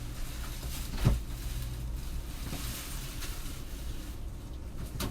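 Groceries being put into a refrigerator: a single knock about a second in and a smaller click near the end, over a low steady rumble.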